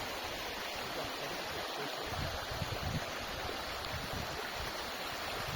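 Snowmelt waterfall, water pouring and splashing in a steady rush.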